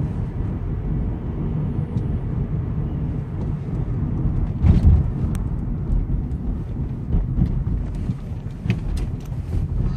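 Steady low road and engine rumble heard from inside a moving car, with one louder thump about halfway through.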